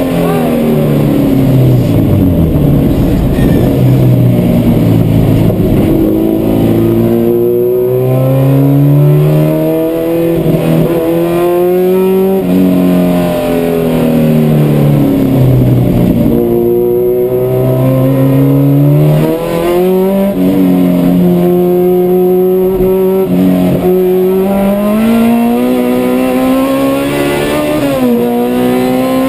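Honda CRX's non-VTEC B20 2.0-litre four-cylinder engine driven hard on a race lap, heard from inside the cabin: its pitch climbs and falls again and again, with a few sudden drops.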